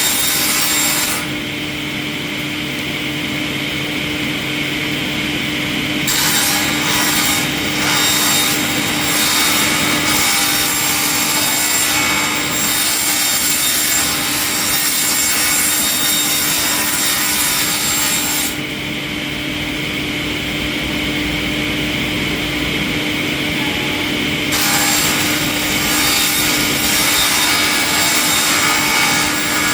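Industrial wood-processing machine working on wood: a steady machine hum under a harsh rasping, grinding noise. Twice the rasping drops away for about five seconds, leaving a quieter, duller sound, before it comes back.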